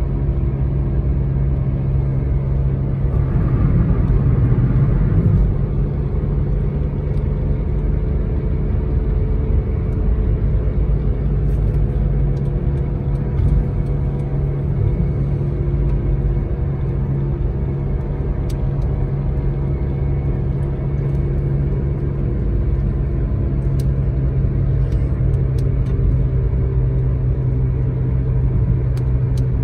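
Steady road noise of a car cruising at highway speed, heard from inside the cabin: a low rumble of tyres and engine, swelling slightly a few seconds in.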